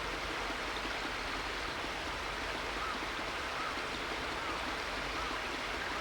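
Steady rushing noise of running water, with a few faint short chirps in the second half.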